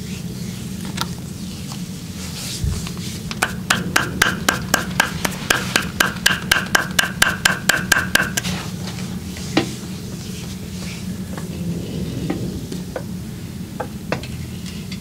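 Hands striking the body in a fast rhythmic percussion massage, about five sharp slaps a second for some five seconds starting about three seconds in, with a few single taps before and after, over a steady low hum.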